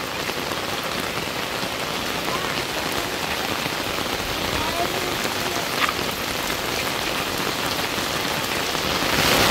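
Steady rain falling and splattering on surfaces, getting a little louder near the end.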